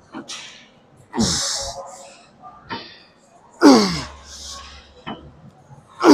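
A man grunting and blowing out hard breaths with each rep of a heavy set of tricep dips: strained grunts that slide down in pitch, about two and a half seconds apart, the last two the loudest.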